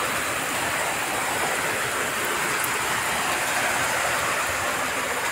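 Heavy rain pouring steadily, an even hiss with no breaks.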